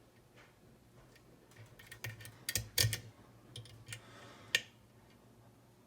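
Lock pick working the pin tumblers of an ERA rim cylinder: an irregular run of small metallic clicks and scrapes that starts about a second and a half in and ends with one sharp click.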